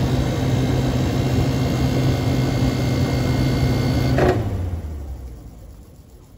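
1993 White-Westinghouse casement window air conditioner running, its Sanyo rotary compressor and fan giving a steady hum. It is switched off about four seconds in with a click, and the hum sinks in pitch and fades as the compressor and fan wind down.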